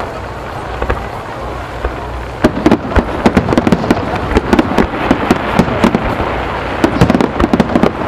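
Fireworks star mine: a rapid-fire barrage of aerial shell bursts. A few scattered bangs at first, then from about two and a half seconds in a dense run of many bangs a second.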